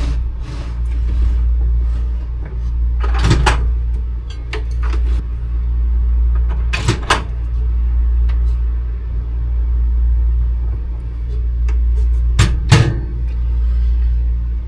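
A steady low hum that swells and fades every few seconds, with a few sharp knocks about three, seven and twelve seconds in.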